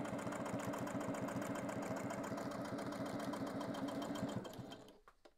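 Domestic electric sewing machine stitching steadily at speed through patchwork fabric, then slowing and stopping about four and a half seconds in.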